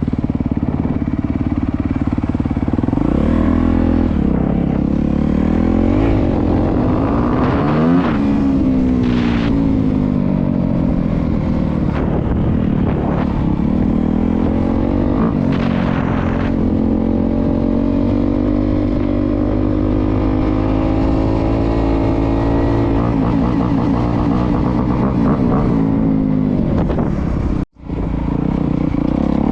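Honda CRF250R's single-cylinder four-stroke engine under riding load, its pitch repeatedly climbing and dropping with throttle and gear changes, with a long steadier stretch in the middle. The sound cuts out for a split second near the end.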